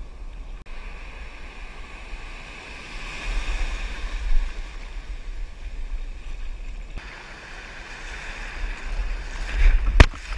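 Ocean surf and whitewater foam washing around, with wind rumbling on the microphone. A single sharp knock comes near the end.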